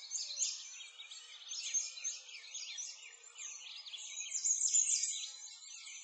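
Many small birds chirping and singing at once, a dense, unbroken chorus of quick high chirps and trills.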